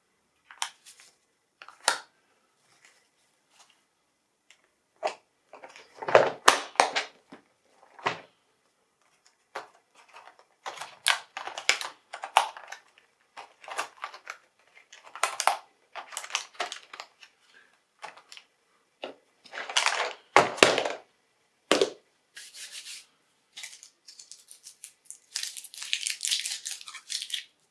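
Plastic storage boxes and pastel containers being picked up and moved on a tabletop: irregular clacks, knocks and rustling, with a longer scraping rustle near the end.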